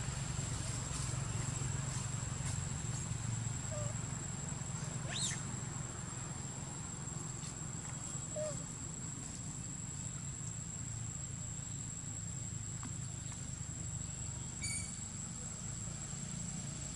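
Steady high-pitched drone of forest insects, with a low steady hum underneath. Two brief chirps cut in, about five seconds in and again near the end.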